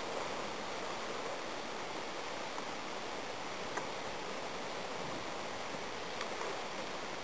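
Steady outdoor wind noise, an even hiss like wind through grass and trees, with one faint tick about four seconds in.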